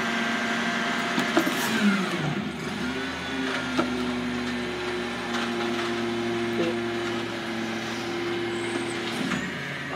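Front-loader garbage truck's engine running, speeding up about two seconds in and holding a steady higher pitch before dropping back near the end, with a few sharp clanks.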